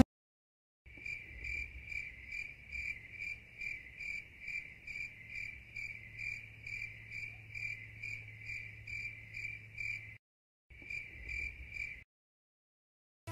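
Cricket chirping sound effect: a steady run of short, evenly spaced chirps, about two or three a second, with a faint low hum beneath. It breaks off briefly after about ten seconds, resumes, and stops shortly before the end.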